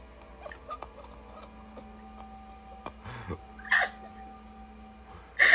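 A few short, breathy vocal noises, like hiccuping sobs or sniffs: two about three seconds in and a louder one near the end, over a faint steady hum.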